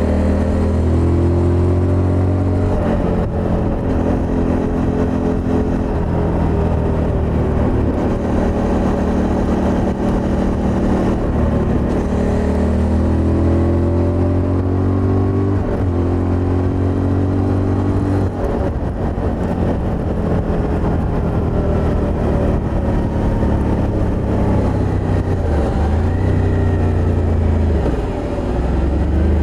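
Suzuki V-Strom motorcycle's V-twin engine running loud and continuously, its pitch rising and falling repeatedly with throttle changes.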